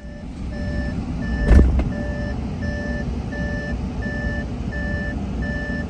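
A vehicle's reversing warning beeper sounding evenly, about three beeps every two seconds, over a steady low rumble of engine and road noise. A single loud thump comes about one and a half seconds in.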